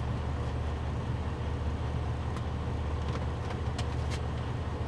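Steady low rumble of a semi truck's diesel engine idling, heard inside the cab, with a few faint clicks over it.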